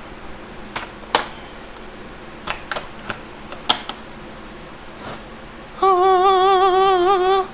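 Clicks from a plastic tool case as its latches are snapped open and the lid is lifted, about six in the first four seconds. Near the end a man's voice holds one sung note with a slight wobble for about a second and a half, as the case comes open.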